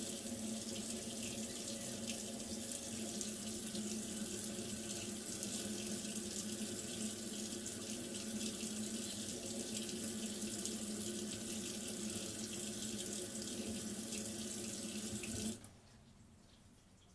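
Water running steadily from a tap, a hiss with a steady hum under it, shut off abruptly about fifteen and a half seconds in.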